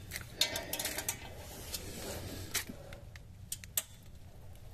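Socket ratchet clicking in short, irregular bursts with light metal ticks while backing out a rusted exhaust bolt that has just broken free.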